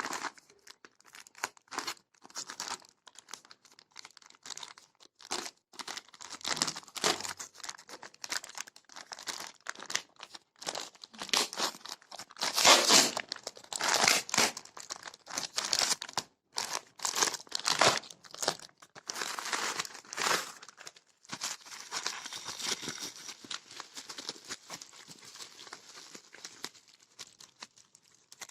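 Parcel packaging being torn open and crumpled by hand: irregular crinkling and tearing in uneven bursts, loudest about halfway through.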